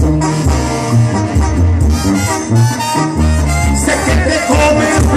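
Sinaloan banda playing live at full volume: a section of brass and woodwinds over a tuba bass line that moves from note to note.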